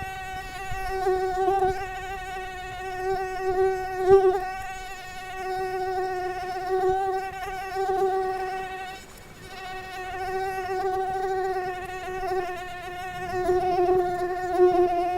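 Mosquito's wings whining in flight: a steady, high-pitched hum with a wavering pitch. It swells and fades in loudness and drops away briefly about nine seconds in.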